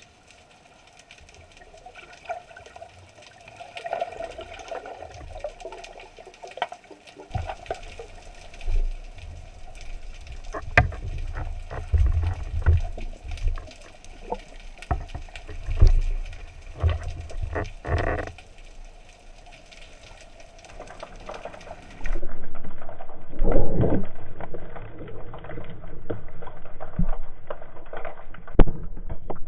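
Water sloshing and bubbling against an underwater action camera's housing, with scattered knocks and low bumps. About two-thirds through the sound cuts to a duller, louder underwater wash.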